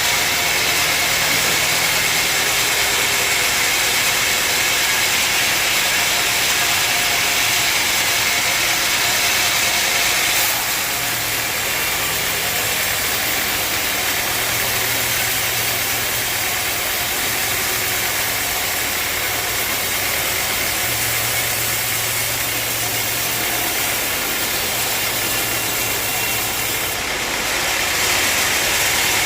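Sawmill machine running steadily with a constant engine-like hum and hiss. The sound eases a little about a third of the way in and picks up again near the end.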